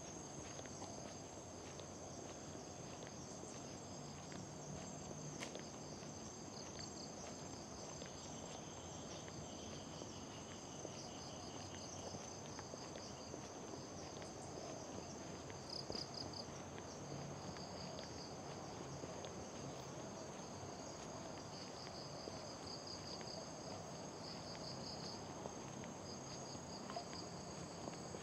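Insects chirring: a steady high-pitched buzz, with pulsed trills coming and going on top, over a low steady hiss.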